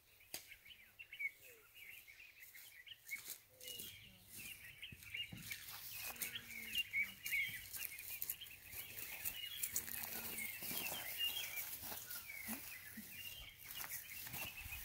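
Small birds chirping and twittering steadily. From about five seconds in this is joined by scattered knocks and clatters as the metal chequer-plate sliding door of an animal transport crate is handled.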